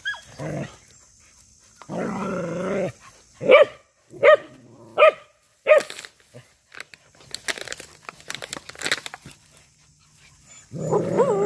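Several dogs growling and barking: a drawn-out growl about two seconds in, then four short, sharp barks a little under a second apart, scratching and rustling in dry leaves, and another long growl near the end.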